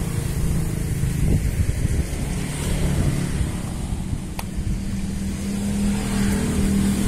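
A motor vehicle engine running close by, a low steady hum that shifts to a higher pitch about five seconds in, with a single sharp click about four and a half seconds in.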